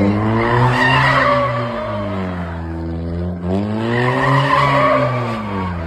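A car's tyres squealing as it slides sideways, with its engine revving; the engine note sinks, climbs again about halfway through, then sinks once more.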